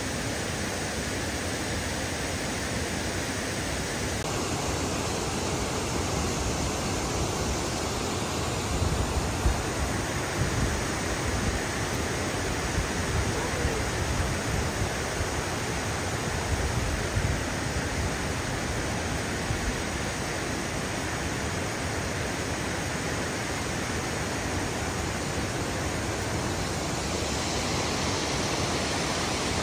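Steady rush of water pouring through a dam's floodgates, an even noise that never breaks.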